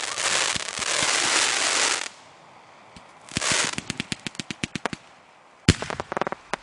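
Consumer firework cakes going off. A dense crackle stops about two seconds in, then a burst and a quick string of sharp pops follow. Near the end there is one loud bang and another rapid run of pops.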